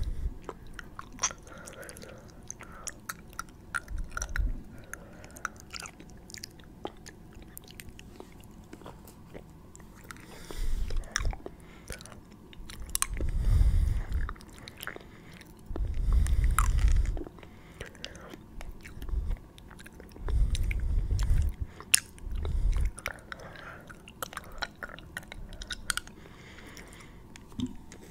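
Close-miked ASMR mouth sounds: a run of sharp, wet clicks and smacks. In the middle come several low, muffled swells of about a second each, the loudest part.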